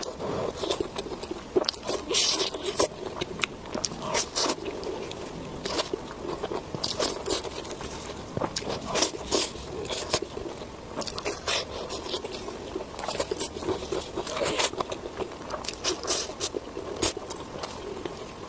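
Close-miked eating: a person biting and chewing food, with a rapid, irregular run of short crunches and mouth clicks throughout.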